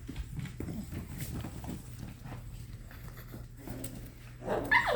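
Puppies playing: faint scuffling and nail clicks with small play growls over a low steady hum, then a louder puppy yip about four and a half seconds in.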